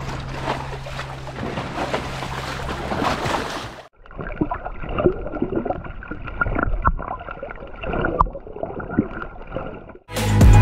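Seawater sloshing against shore rocks, with wind on the microphone. About four seconds in it cuts to the muffled sound of a camera underwater, with bubbling and scattered clicks.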